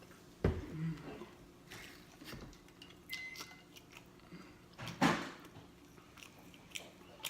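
Close-up chewing and lip-smacking while eating cheese pizza: scattered wet clicks and smacks, with louder mouth sounds about half a second in and again about five seconds in.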